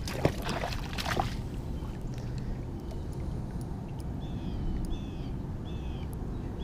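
Water splashing for about the first second as a hooked bass thrashes at the surface beside the kayak, followed by a bird calling several short chirps about once a second.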